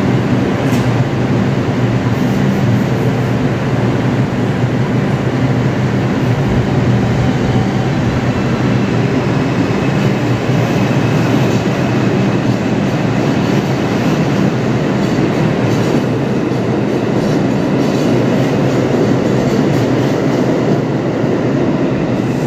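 R142 subway train pulling out of an underground station and running past along the platform, with a loud, steady noise of wheels and motors throughout.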